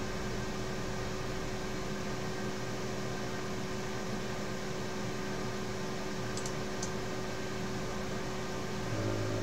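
Steady room tone: an even hiss with a low electrical hum, like computer fans running, with a few faint clicks about six and a half seconds in.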